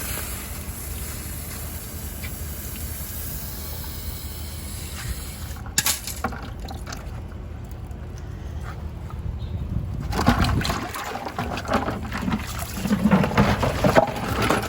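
Water splashing and bubbling over a steady low rumble, with a sharp knock about six seconds in; the water grows louder and busier with crackles over the last few seconds.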